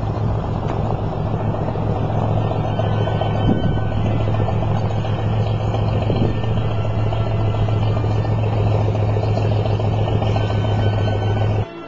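Light propeller airplane's piston engine droning steadily, with a constant low hum. The sound cuts off abruptly near the end.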